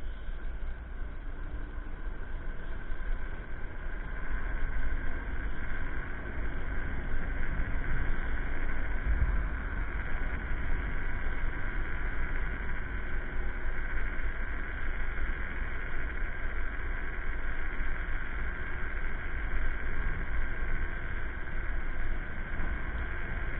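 Electric scooter riding along a road: a steady motor whine under wind rumble on the microphone and tyre noise. It grows a little louder about four seconds in.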